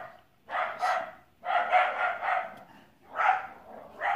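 A dog barking over and over, in bursts of one to three barks with short gaps between.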